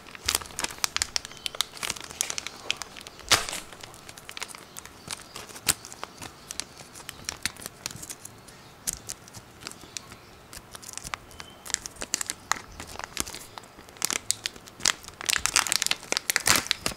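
Thin clear plastic bag crinkling and crackling as fingers pick and pull at it to get it open: irregular crackles throughout, thickest near the end, with one louder snap about three seconds in.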